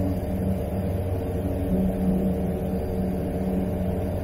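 Ikarus C42 C ultralight's 100 hp Rotax flat-four engine and propeller running steadily in flight, heard inside the cabin as an even drone.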